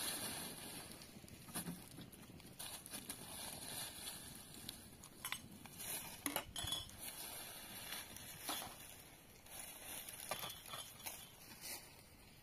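Metal dishes and utensils clinking and knocking at irregular intervals, with one brief ringing clink about halfway through.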